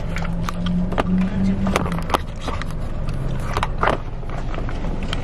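Phone being handled and repositioned inside a car: clicks, knocks and rubbing on the microphone, about 2 and 4 seconds in, over the steady low rumble of the car.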